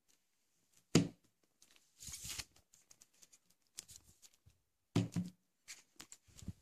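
Shrink-wrapped hardcover book handled on a plastic-covered table: a sharp knock about a second in, a brief rustle of plastic wrap around two seconds, another knock about five seconds in, and small taps and clicks in between.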